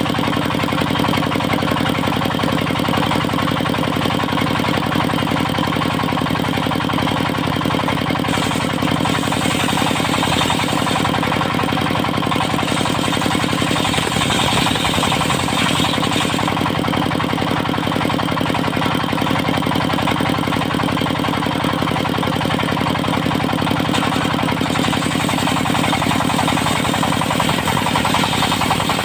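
Engine of a portable circular sawmill running steadily with a fast, hard pulse. A higher hiss comes in about eight seconds in, fades a few seconds later, and returns near the end.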